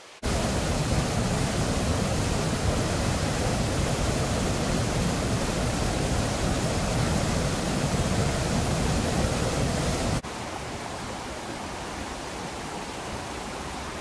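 Water rushing over a small concrete weir and churning into a rocky pool: a loud, steady rush. About ten seconds in it cuts to the softer, steady rush of a shallow mountain stream over rocks.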